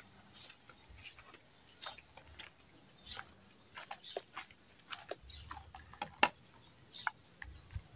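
Small birds chirping, short high notes repeating about once a second, with faint scattered clicks and one sharper click about six seconds in.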